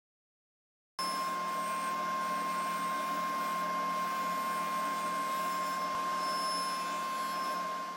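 Powermatic table saw running at speed: a steady motor and blade whine with a lower hum. It cuts in abruptly about a second in and fades away at the end.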